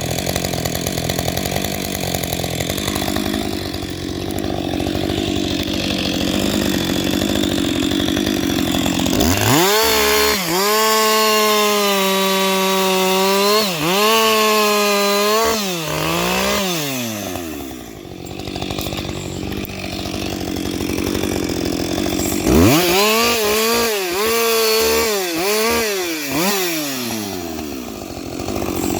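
Husqvarna 560XP two-stroke chainsaw running at low speed, then opened up to full throttle about nine seconds in. It holds a high, steady note with brief dips for about seven seconds before the revs fall back. Near the end it is throttled up again, with several quick dips in pitch, and it drops and climbs once more.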